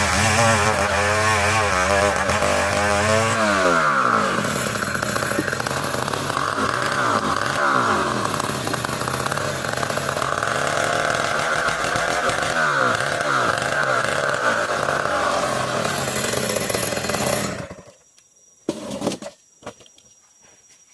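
Old chainsaw running, its engine pitch dropping about three and a half seconds in as it takes load, then sawing steadily through dense ulin ironwood with a wavering pitch. It cuts off suddenly a few seconds before the end, followed by a couple of short knocks.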